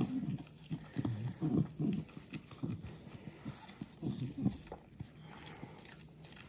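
Miniature schnauzer licking and smacking its mouth in an irregular run of short wet smacks, tasting dog toothpaste while its teeth are rubbed with a gloved finger. The smacks die down after about four and a half seconds.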